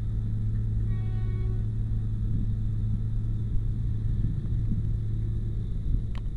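Steady low rumble of a train rolling slowly, heard from on board. A brief faint tone comes about a second in, and two sharp clicks come near the end.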